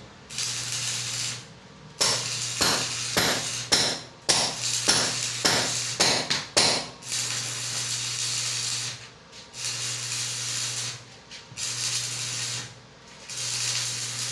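Arc (stick) welding: the arc crackling and hissing in runs of a few seconds over a steady electrical hum, stopping and restarting several times. Between about two and seven seconds a quick series of sharp taps or pops cuts through.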